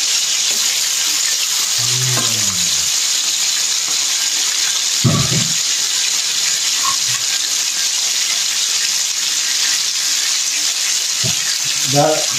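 Pieces of pekasam (salted fermented fish) deep-frying in a wok of hot oil: a steady sizzle. A brief low thump about five seconds in.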